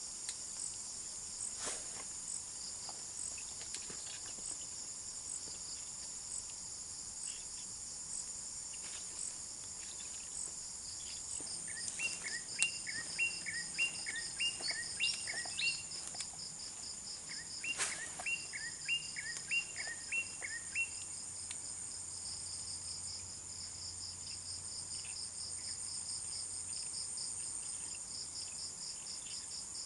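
Steady high-pitched chorus of insects, one of them pulsing rapidly. Partway through, an animal gives two runs of short, quickly repeated chirps.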